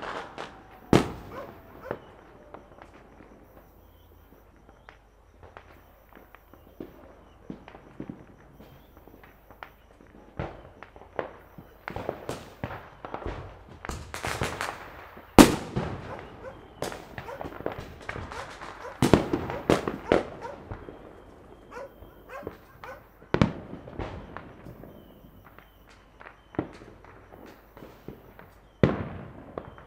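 Fireworks and firecrackers going off at irregular intervals, sharp bangs of varying loudness. The loudest bang comes about halfway, and there are bursts of rapid crackling around the middle and a few seconds later.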